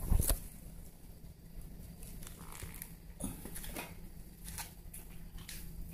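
A thump right at the start, then scattered rustles, crinkles and tearing sounds of a plastic Churu cat-treat stick being handled and torn open.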